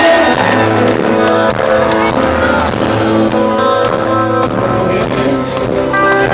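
Live band playing on stage, with guitars over held low bass notes.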